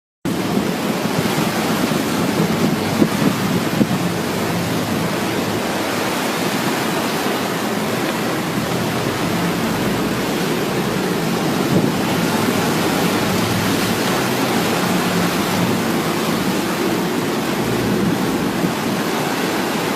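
Steady rushing noise of wind and sea water around a fishing boat at sea, with wind buffeting the microphone.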